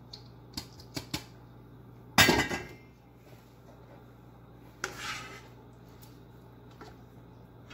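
Metal cookware clattering: a few light clicks, then a loud clatter about two seconds in and a shorter scrape near five seconds, as drained rice is tipped from a steel colander into a pot and a spoon scoops curry from a pan.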